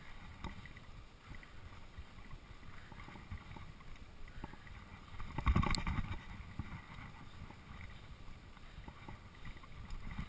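Mountain bike rolling fast down a dirt singletrack: tyres rumbling and crunching on the dirt, with small irregular rattles from the bike over bumps. A louder jolt comes about five and a half seconds in.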